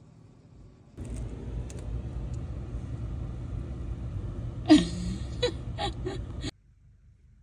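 Steady low outdoor rumble that starts about a second in. About four and a half seconds in comes one loud short cry falling in pitch, then a few shorter cries. The sound cuts off sharply near the end.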